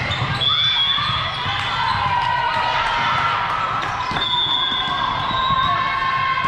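Volleyball rally sounds: sharp hits of the ball, shoe squeaks on the court floor, and players shouting as the point ends.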